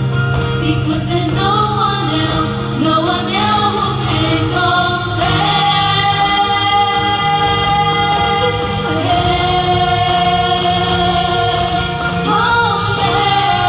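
Music: a group of voices singing with accompaniment, moving between notes at first, then holding long notes from about five seconds in.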